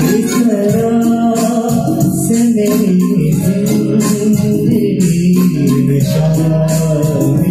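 A male voice sings a slow melody in Raag Pahadi with long, bending held notes, accompanied by a harmonium and an electronic keyboard, over a light, steady percussion beat.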